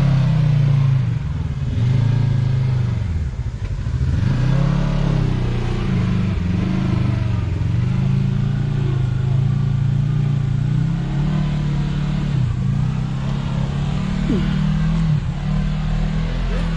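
Kawasaki Teryx KRX 1000 side-by-side's parallel-twin engine revving up and down over and over under load as it crawls up a rock trail, the pitch dropping and climbing again several times.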